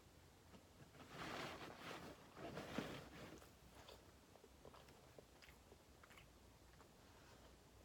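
Person chewing a fried chicken sandwich, with two louder spells of chewing about one and two and a half seconds in, then faint mouth clicks.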